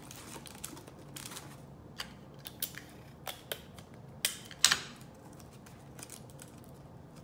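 Paper and adhesive tape being handled while a paper cap is fixed onto a cardboard tube: scattered crinkles, short rips and taps. The loudest is a sharp crackle about four and a half seconds in.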